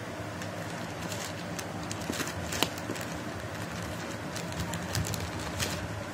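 Plastic courier mailer bag crinkling as a hand works at a torn hole in it: a string of irregular sharp crackles, the sharpest about two and a half seconds in, over a steady low hum.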